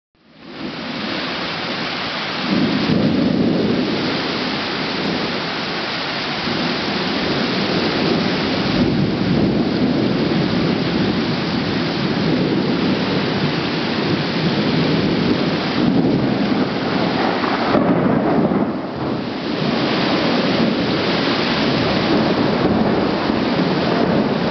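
Heavy rain falling in a rainstorm: a dense, steady hiss that grows louder about two and a half seconds in, with further swells later.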